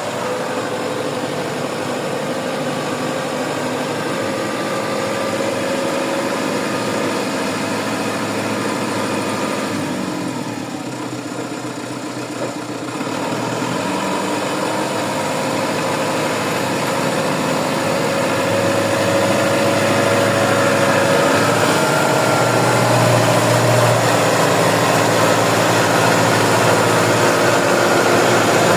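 Tractor engine running with a steady whine over it, dipping briefly about ten seconds in and growing louder in the second half.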